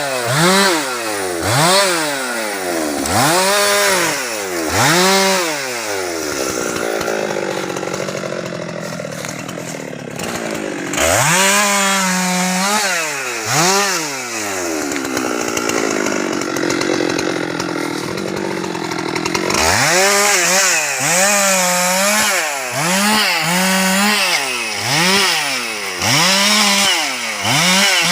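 Husqvarna 390XP two-stroke chainsaw revving up and dropping back again and again, about once a second, with two longer stretches of steadier, lower running in between.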